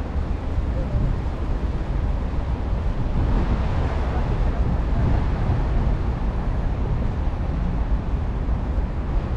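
Steady outdoor rumble of wind on the microphone and traffic, with a louder swell of hiss about three to five seconds in.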